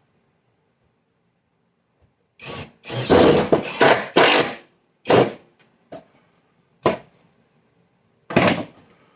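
Power drill driving wood screws into a 2x4: a run of about two seconds in several pulses, then three short trigger bursts about a second and a half apart as the screws are seated.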